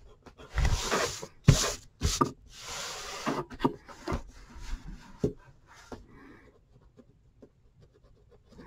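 Colored pencil scratching across paper in several quick shading strokes, with the sheet and hands rubbing on the desk. It is loudest in the first three seconds or so, then trails off into a few light taps.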